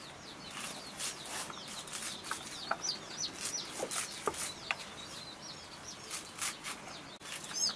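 A large curved knife slicing through a hand-held bunch of fresh leafy greens, a crisp cut about twice a second at an uneven pace. Short high bird chirps sound between the cuts.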